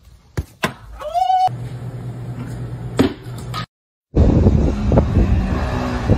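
Punches thumping on a heavy punching bag, with a short cry about a second in. After a brief cut, a small quad bike's engine running steadily.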